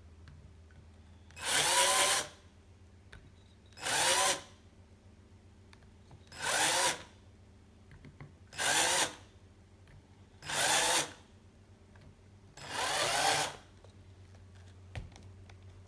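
Small electric drill run in short bursts, six times about every two seconds, drilling into the metal of a vintage bicycle quick-release skewer to lighten it. A faint steady low hum sits between the bursts.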